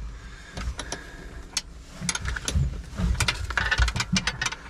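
A combination spanner tightening the bolts of a Grammer seat mount on the cab floor of a John Deere 6610 tractor: irregular metal clicks and scrapes, coming quickly about three seconds in.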